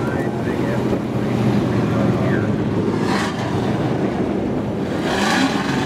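Engines of several race trucks running at low speed as they circle the oval, with wind noise on the microphone.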